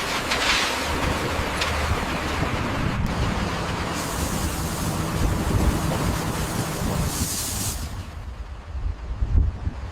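Heavy construction machinery running with a low steady rumble under a loud hiss. The sound changes abruptly a few times.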